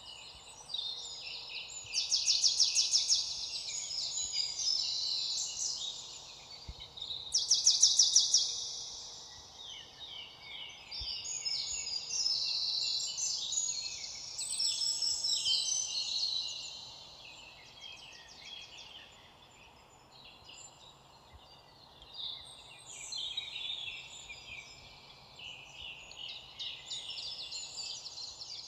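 Several songbirds singing and chirping together, their calls overlapping throughout. Two loud, fast trills stand out, about two seconds in and about eight seconds in.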